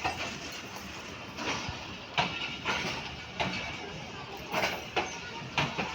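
A rake of empty passenger coaches rolling slowly past, their wheels giving irregular sharp knocks over the rail joints.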